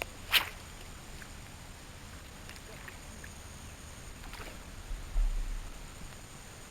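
Small knocks and clicks aboard a small fishing skiff over a faint steady hiss: a sharp click just after the start, a few faint ticks, then a low thump about five seconds in.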